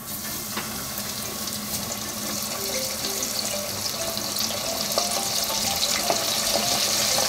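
A floured takenoko mebaru rockfish deep-frying in hot oil: a dense crackling sizzle that grows steadily louder.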